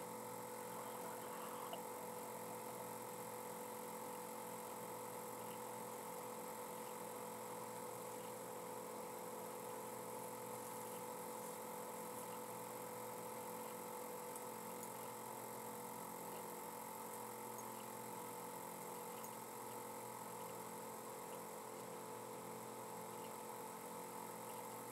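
Faint steady hum made up of several constant tones.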